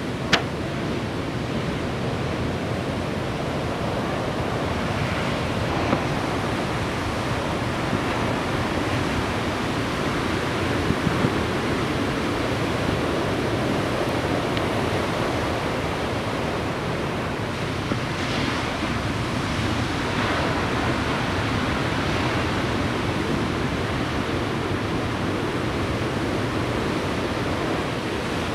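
Steady wash of ocean surf breaking, heard as an even noise throughout, with a few brief sharp clicks, the loudest just after the start.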